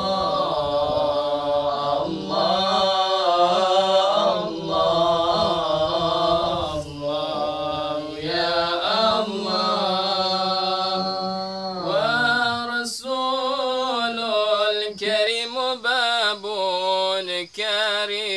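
Men chanting an unaccompanied Arabic sholawat (Islamic devotional praise song), drawing the words out in long, winding melismatic phrases over a low steady held note that stops about twelve seconds in.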